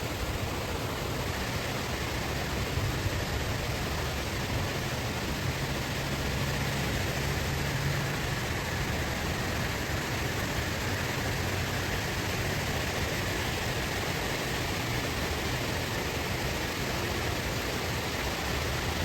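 Steady rushing of a waterfall running high after heavy rain.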